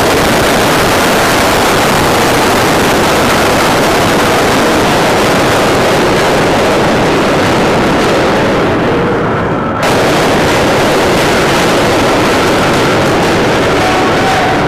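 An aircraft carrier's heavy anchor chain running out as the anchor is let go, making a loud, continuous rattle of links. It eases briefly about ten seconds in, then comes back at full level.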